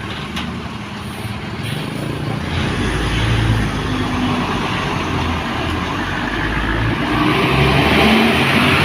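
Intercity bus's diesel engine running, growing louder from about two and a half seconds in as it draws close, with road noise building near the end.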